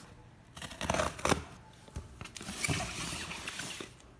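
Rustling and crinkling of paper and plastic-wrapped product packaging being handled close to the microphone, in a short burst about a second in and a longer stretch from about two and a half to four seconds.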